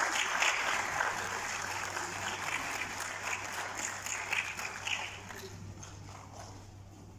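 Audience applauding, the clapping gradually dying away over the last couple of seconds.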